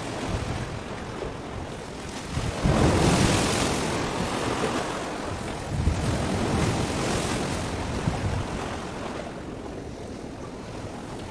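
Waves washing on the shore, with wind rumbling on the microphone; the rush swells louder about three seconds in and again around six seconds.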